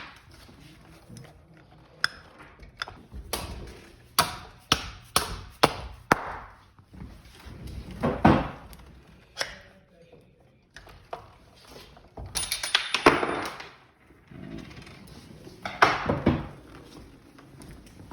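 Sharp taps and knocks of metal scooter wheel and axle parts being worked loose, with a quick run of about eight taps a few seconds in. Scraping and clattering follow near the middle and near the end.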